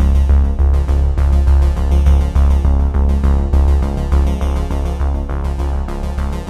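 Electronic background music: synthesizer tones over a heavy bass and a steady beat.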